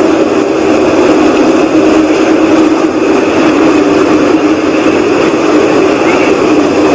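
Loud, steady whooshing rumble in the sky from an unexplained source, something between a whoosh and a rumble, which the recorder insists is not aircraft noise.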